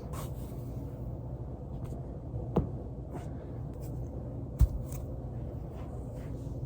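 Back joints cracking: two sharp pops about two seconds apart, the second louder with a dull thud, and a few fainter clicks between them, over a steady low hum.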